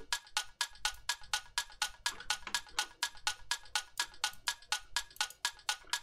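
Electronic tick-tock clock effect built from a short percussion sample, ticking evenly at about five clicks a second, treated with light reverb and a soft delay echo.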